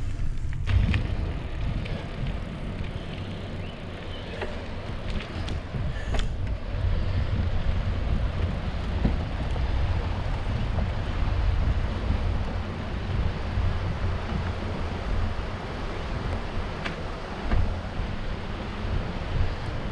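Wind buffeting the microphone while riding a bicycle along a trail: a low, uneven rumble with a few sharp clicks.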